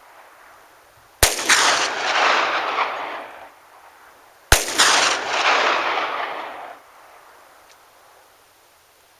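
Two shots from a Glock 20SF 10mm pistol firing Underwood 135 grain jacketed hollow points, about three seconds apart. Each crack is followed by a long echo that fades over about two seconds.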